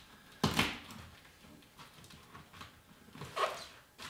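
Packing tape being slit with a blade and pulled off a cardboard box: a sharp rasp about half a second in, then a softer scrape of tape and cardboard near the end.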